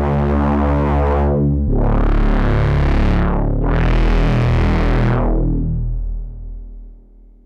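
Eowave Quadrantid Swarm hybrid synthesizer playing a low-pitched sequenced tone. The pitch shifts about a second and a half in, and the filter sweeps open and closed twice, brightening and dulling the sound. It fades out near the end.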